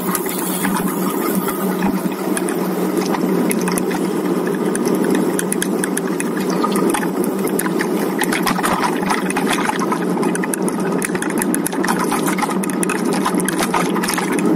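Steady low rushing noise with many small clicks, from riding a road bike uphill: wind and road noise on the microphone.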